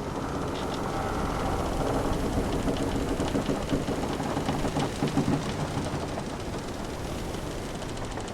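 Wooden sailing ship's timbers creaking over a steady wash of sea and wind. The creaks are strongest in the first half or so, and a quick ticking rattle follows near the end.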